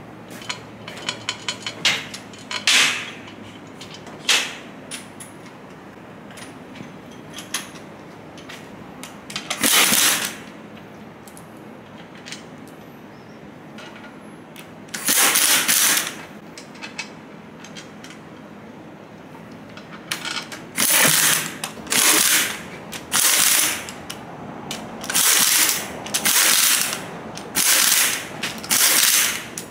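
Handheld power ratchet on a long extension driving bolts into a Twin Disc MG509 marine gearbox housing, running in short bursts of about a second each, with small metallic clicks between them. The bursts come sparsely at first and follow each other quickly near the end as the bolts are run down one after another.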